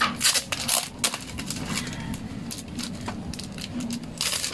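Packaging being handled and crinkled during an unboxing, giving a series of short crackling rustles that are thickest about half a second in and again near the end.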